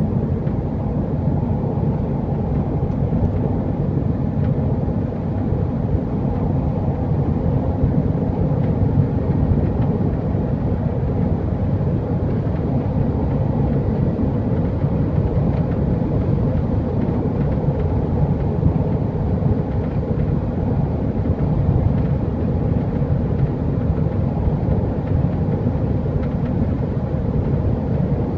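Toyota GT86 driving at speed: steady road and engine noise with a fine rattle running through it, the rattle that sets in above about 100 km/h.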